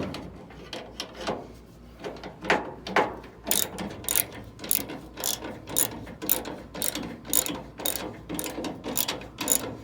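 9/16-inch socket ratchet wrench clicking as it runs bolts down tight, a few scattered clicks at first, then steady back-and-forth strokes from about a third of the way in.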